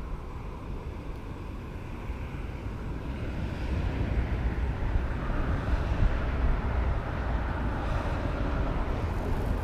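Outdoor background rumble with no voices, a steady low noise that slowly grows louder from about three seconds in.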